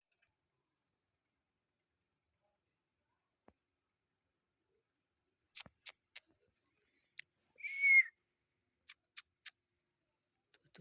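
Crickets trilling in one continuous high, steady note. About halfway through come a few sharp clicks in quick sets, and near eight seconds a single short, high squeak, the loudest sound here.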